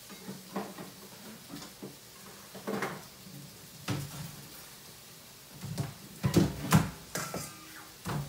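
Kitchen clatter: a string of knocks as dishes and utensils are handled, busiest and loudest about six to seven seconds in.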